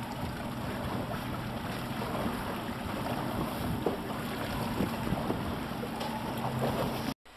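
Small motorboat underway on open sea: a Mercury outboard engine running steadily under wind on the microphone and water washing against the hull. The sound cuts off abruptly near the end.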